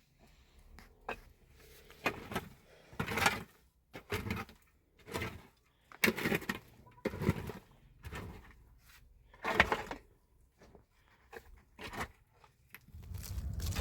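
A series of irregular knocks and scrapes, about one every second or so, some louder than others.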